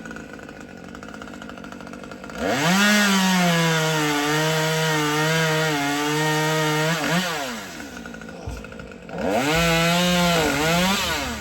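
Two-stroke chainsaw idling, then revved to full throttle twice, a long burst of about five seconds and a shorter one near the end. In each burst the pitch jumps up, settles slightly lower and wavers as the saw cuts under load, then falls back to idle.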